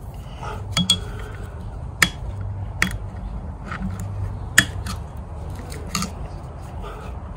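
Long-nose pliers clicking against a metal propeller hub and its twisted locking wire as the wire is pressed down against the lock nut: about half a dozen sharp metallic ticks at irregular intervals.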